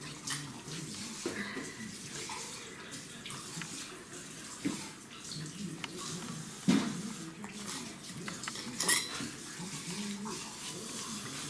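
Pembroke Welsh corgi lapping water from a stainless steel bowl, with scattered sharp clinks, the loudest about two-thirds of the way through.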